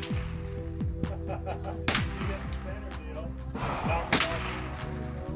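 .22 LR rifle shots: two sharp cracks about two seconds apart, with fainter cracks in between, over a steady low hum.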